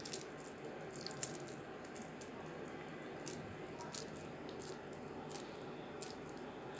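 Hands squeezing and rolling sticky, syrup-soaked boondi into laddu balls: faint squishing with scattered light clicks over a steady low hiss.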